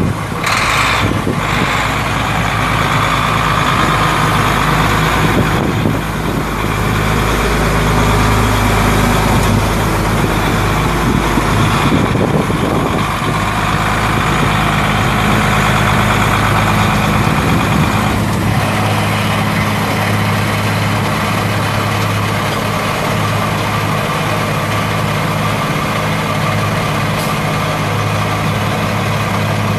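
The Kenworth T300's Cummins C8.3 inline-six turbo diesel runs steadily at idle while driving the PTO hydraulic hoist that tips the dump bed. The deep rumble eases about two-thirds of the way through.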